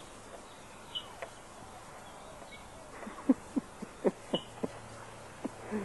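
Basset hounds giving a quick run of short, sharp barks, six or seven in a row, starting about halfway through.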